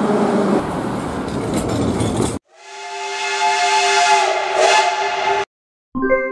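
A metro train rumbles into a station for about two seconds. Then a steam locomotive's whistle fades in and holds one chord-like note of several tones for about three seconds before cutting off sharply. Music starts near the end.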